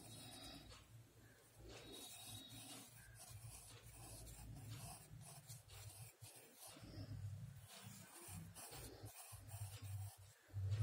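Pencil lead scratching faintly on paper in short, repeated strokes while drawing, over a low steady hum.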